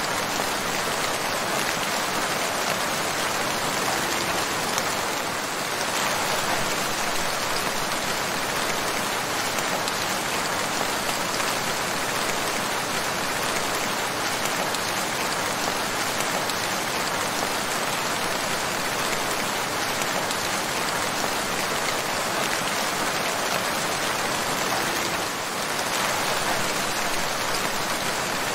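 Steady rain falling, an even hiss of many drops, with a brief slight dip in level about five seconds in and again near the end.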